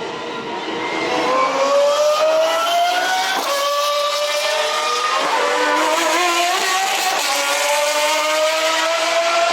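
Pagani supercar's V12 engine accelerating hard, its pitch climbing through the revs and dropping at an upshift about three and a half seconds in before climbing again.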